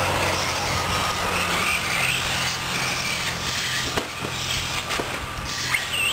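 Several 1/8-scale RC short course trucks racing, their motors whining in pitches that rise and fall with throttle. Sharp knocks come about four and five seconds in and again near the end.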